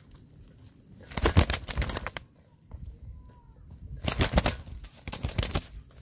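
A domestic pigeon flapping its wings hard while tied by a string to a stick trap: three bursts of rapid wing beats, the first about a second in and lasting about a second, then two shorter ones around four and five seconds in.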